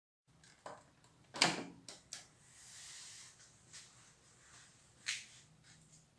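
Hands working on small hard parts: a series of sharp clicks and knocks, loudest about a second and a half in, with a short rustling hiss around three seconds.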